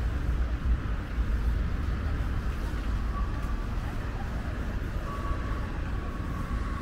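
Steady hum of road traffic, with a strong, uneven low rumble underneath. A faint thin high tone comes in briefly about three seconds in and again from about five seconds.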